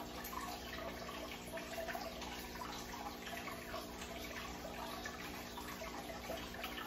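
Oil sizzling and crackling steadily in a frying pan, over a steady low hum.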